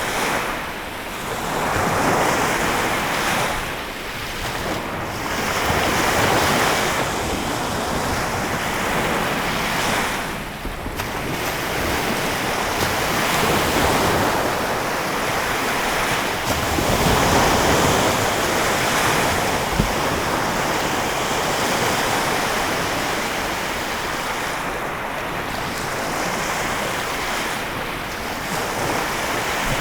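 Lake Michigan waves breaking and washing on the shore in a steady, continuous wash that swells and eases every few seconds, with wind buffeting the microphone.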